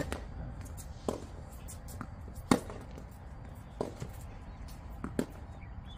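Tennis rally: a ball struck back and forth with rackets, a series of sharp pops. The loudest are at the start and about two and a half seconds in, with fainter hits and ball bounces in between.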